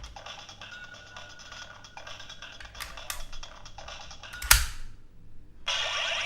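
Appmon AppliDrive toy playing its electronic sound effects and jingle as the Offmon chip is read. A sharp click comes about four and a half seconds in, and a louder, noisier effect starts near the end.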